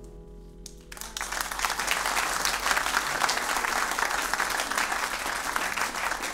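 Nylon-string classical guitar's final chord dying away, then audience applause breaks out about a second in and continues steadily.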